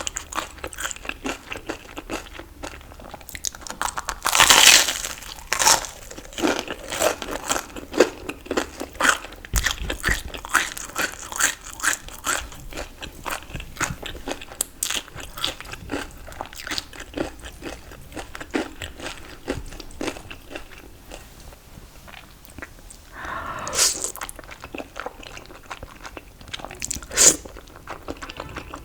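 Close-miked crunching and chewing of crisp fried food, with loud crunchy bites about four seconds in and twice near the end.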